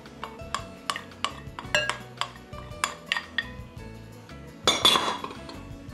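A spoon tapping and scraping on a ceramic bowl to knock annatto powder into a glass bowl: a run of light clinks, about two a second, with a louder, noisier scrape near the end.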